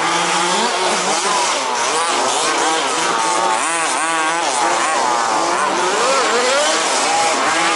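Several 1/5-scale petrol RC buggies racing together. Their small two-stroke engines rev up and down over one another, with a quick warbling rise and fall in pitch about four seconds in.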